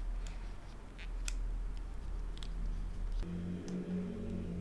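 Light, scattered clicks and taps of small plastic and metal headphone parts being handled and unscrewed with a precision screwdriver. A low, steady hum comes in about three seconds in.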